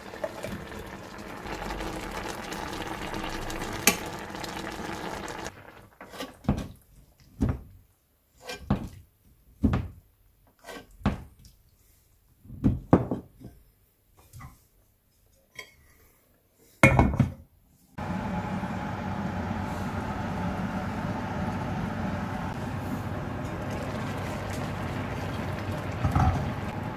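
Fish simmering in a vinegar broth in a steel frying pan, a steady bubbling hiss. In the middle stretch a metal spoon scoops broth and pours it back over the fish in about a dozen short splashes and clinks; then the steady simmering resumes.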